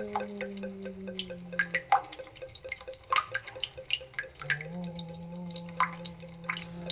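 Water dripping from a bathroom tap: irregular drops, several a second. Beneath them is a low held tone that drops in pitch about two seconds in and rises again about four and a half seconds in.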